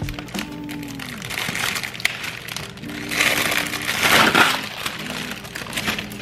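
Background music with steady tones, over which a cellophane flower wrap rustles and scissors snip through thick sunflower stems. There is a sharp click about two seconds in and a loud rustle from about three to four and a half seconds in.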